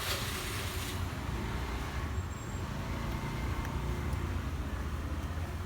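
Steady low rumble of road traffic, with a hiss that is stronger in the first second and then eases.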